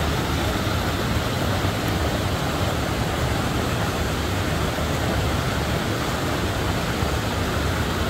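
A small waterfall and cascades of river water pouring over rock ledges into pools: a steady, even rush of water.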